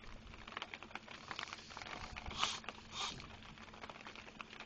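Raindrops pattering as many irregular small ticks, over a faint steady low hum, with two brief louder rustles about two and a half and three seconds in.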